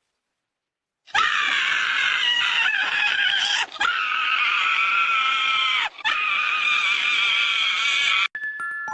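An animal screaming in long, high-pitched cries that waver in pitch. It starts about a second in, breaks off twice briefly, and stops abruptly near the end.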